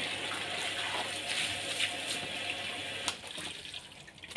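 Water from a garden hose pouring into a plastic basin of fish being washed by hand. The flow stops about three seconds in, leaving only small splashes.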